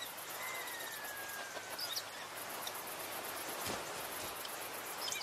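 Summer outdoor ambience of insects chirping in rapid, evenly pulsed trains over a steady hiss, with a faint whistle that falls slowly in pitch about half a second in.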